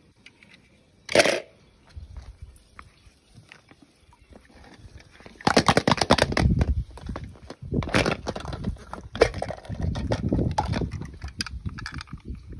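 A single sharp clack about a second in, then from about halfway an irregular stretch of splashing and crackling as water is poured from a plastic cup over a small die-cast toy car.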